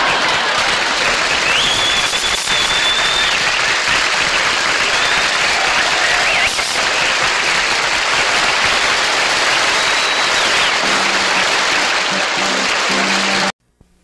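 Television studio audience applauding, with a band playing underneath; the sound cuts off suddenly near the end.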